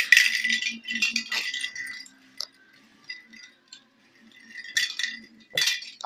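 Small toy ball with a bell inside, rattling and jingling as a parrot pushes and tumbles it about. There is a long spell of jingling at the start, then two shorter bursts near the end.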